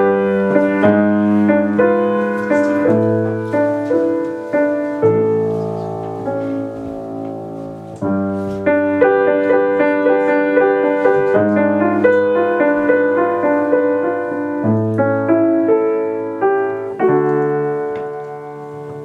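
Grand piano played solo, a chordal introduction: a chord is held and let fade about five seconds in before the playing picks up again, and a last chord is struck near the end and left ringing as it dies away.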